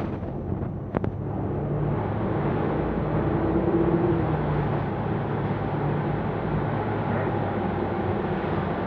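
Cabin sound of a New Flyer XDE40 diesel-electric hybrid bus under way: a steady low drive hum and road noise, with a single sharp click about a second in.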